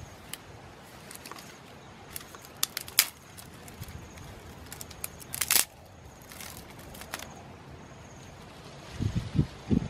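Knife cutting and snapping dry wooden sticks: scattered sharp cracks and clicks, the loudest about three and five and a half seconds in, with a few dull thuds near the end.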